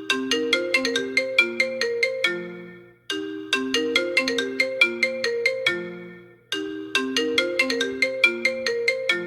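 iPhone XR ringtone playing: a short melody of quick struck, mallet-like notes that repeats about every three and a half seconds, each phrase fading away just before the next begins.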